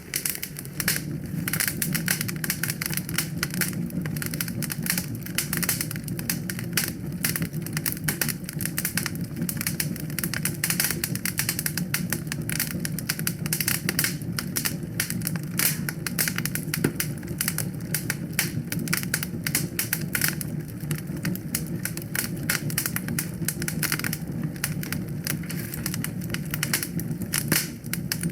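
Wood fire crackling, with many small irregular pops and snaps over a steady low rumble of the flames.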